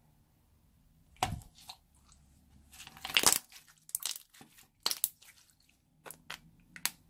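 Hands working clear slime, giving an uneven run of sticky crackles and pops, with the loudest dense burst about three seconds in and single sharp clicks after it.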